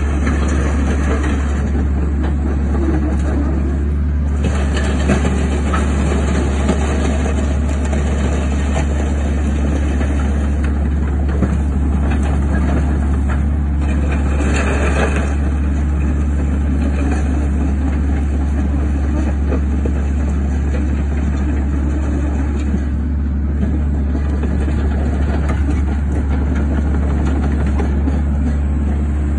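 Caterpillar 308C mini excavator's diesel engine running steadily while the machine travels on its tracks and swings, with a constant low hum and brief louder swells about 5 and 15 seconds in.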